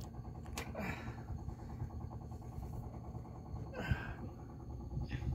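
Steady low hum of an engine running on a small fishing boat, with two short knocks, one about half a second in and one near four seconds.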